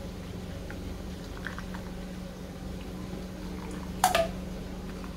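Hot tea being poured from a steel pan through a metal tea strainer into ceramic cups, over a steady low hum. About four seconds in there is a single loud metallic clank with a brief ring.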